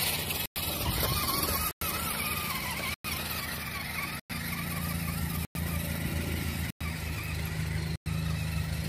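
Axial SCX10 II RC crawler's electric motor and geared drivetrain whining as the truck climbs, with a low hum that grows stronger about four seconds in. The sound is cut by short silent gaps about every 1.25 seconds.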